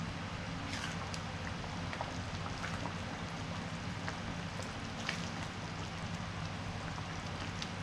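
Curry simmering and bubbling in a wok over a gas burner, a steady hiss, with a spatula stirring through it and scraping the pan a few times.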